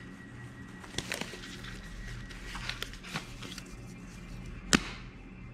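Nitrile gloves being pulled on: a few sharp snaps, the loudest near the end, over a steady low hum.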